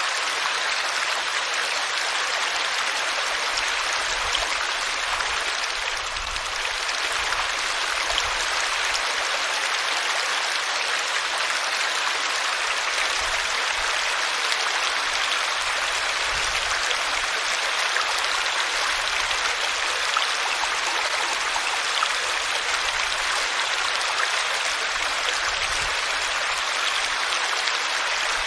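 Water flowing steadily in a small stream, a continuous rushing and babbling.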